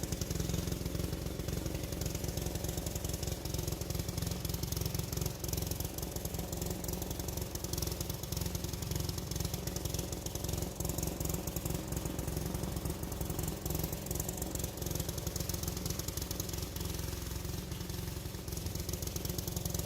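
A small engine running steadily at a constant speed with a fast, rattly beat.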